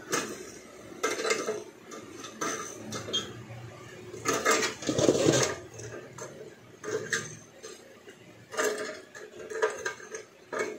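Long-nose pliers knocking and scraping against the metal parts inside an opened rice cooker's base, in irregular clinks and taps, some in quick clusters.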